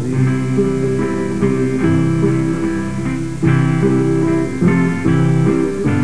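Instrumental folk music played on acoustic guitar, with no singing.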